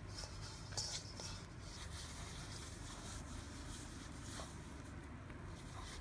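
Faint rustling and a few soft taps of dough being shaped by hand in a stainless steel bowl, over low steady room noise.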